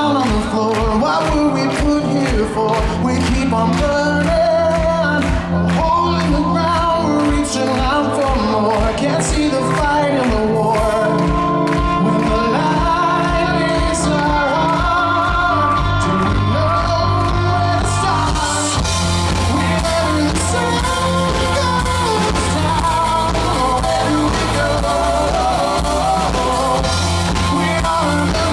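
Live rock band performing: a male lead vocalist singing over keyboard and bass guitar with a steady beat. The band's sound grows fuller about two-thirds of the way through.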